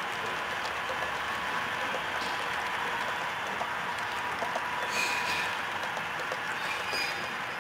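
HO-scale model freight train rolling along the layout track: a steady rolling rattle with faint clicks from the cars' wheels, and brief sharper squeaks about five and seven seconds in.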